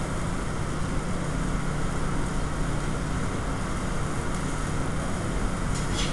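Steady drone of a commercial kitchen's exhaust hood fans, with a low hum under it. Near the end, a couple of sharp metallic clinks of cookware.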